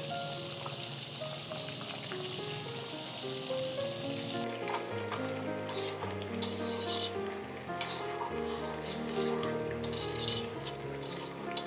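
Coconut milk sizzling and bubbling as it boils down in an aluminium wok to make virgin coconut oil. A metal spatula stirs and scrapes against the pan, with sharp clicks from about five seconds in. Soft instrumental music plays underneath.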